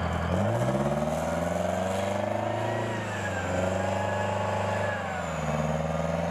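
M109A6 Paladin self-propelled howitzer's Detroit Diesel V8 engine revving as the tracked vehicle turns in place: the pitch climbs, drops about three seconds in, climbs again and drops near the end.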